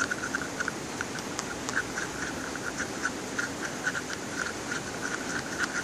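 Shampoo-and-salt slime being stirred in a container, giving quick, irregular wet squishes and clicks, several a second, as the mixture thickens into a gel.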